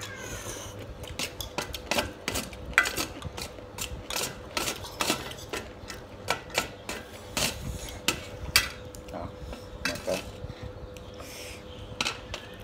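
Wooden chopsticks and a metal spoon clicking and scraping on a stainless steel tray of noodles, in many irregular sharp clicks.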